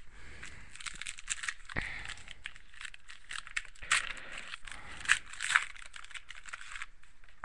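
Plastic wrapper of a trading card pack crinkling as it is torn open and handled, with a few sharper crackles about four and five seconds in; the crinkling stops near the end.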